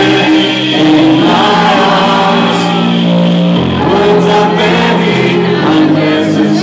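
Loud electronic dance music from a DJ set, with sustained synth chords and sung vocals.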